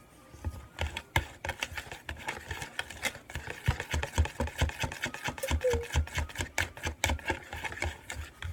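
Spoon knocking against a mixing bowl while stirring pancake batter: rapid, uneven clacks several times a second with dull thuds under them.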